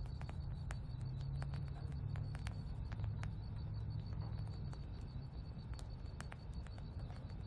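Quiet outdoor ambience: a steady low rumble under a thin, steady high tone, with scattered sharp ticks here and there.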